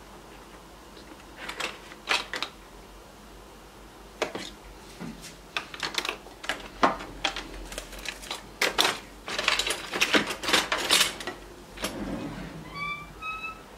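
Irregular clicking and crackling from a closed electric waffle iron as a waffle bakes inside, densest in a run of rapid clicks over the second half. A few short high chirps sound near the end.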